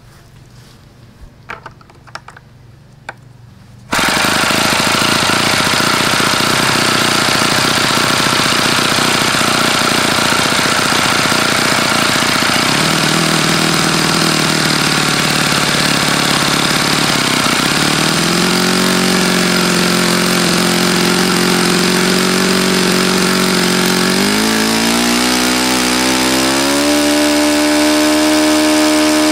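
OS FS-48 Surpass four-stroke model airplane glow engine turning a 12x6 propeller: a few light clicks, then it starts suddenly about four seconds in and runs, at first around 3,500 rpm. Its speed steps up twice and then climbs to a steady high-speed run near 7,800 rpm near the end. The owner says the engine has bad bearings.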